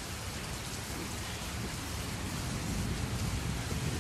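Muddy flash-flood water rushing across a stony riverbed: a steady rushing noise with a low rumble, swelling slightly in the second half.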